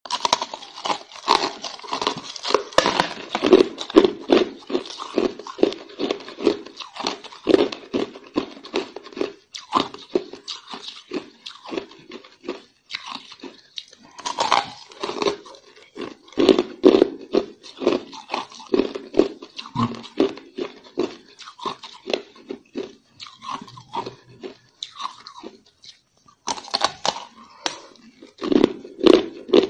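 Hard ice being bitten and chewed: a corn-shaped ice block crunching and cracking between the teeth in many quick, irregular crunches, with short pauses, the longest about a second near the end.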